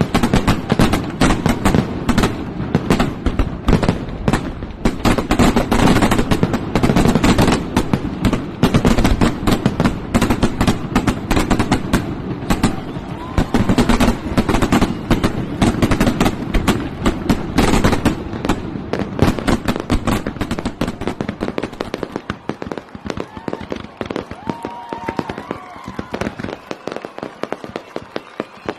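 Fireworks display: a rapid, dense barrage of crackling firework bangs that thins out and grows quieter about two-thirds of the way through.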